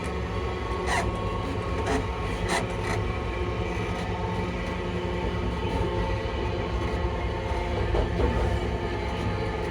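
ScotRail Class 334 electric multiple unit running at steady speed, heard from on board: the traction motors hum at a steady pitch over a low rumble of wheels on rail, with a few sharp clicks.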